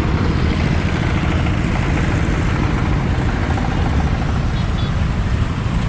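Steady noise of a moving vehicle on the road, with a dense, fluttering low rumble.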